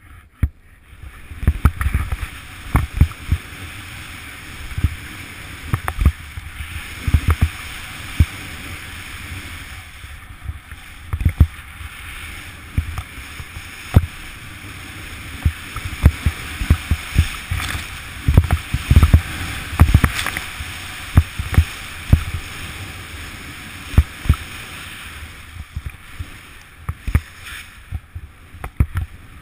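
Snowboard sliding and turning through deep snow, a steady hiss, broken by frequent low thumps and knocks as the board bumps over the snow.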